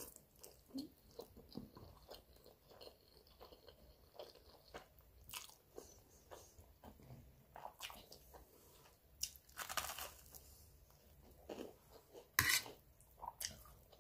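Close-up mouth sounds of a person eating spaghetti and garlic bread: wet chewing with irregular smacks and crunchy bites, a few bites louder than the rest in the second half.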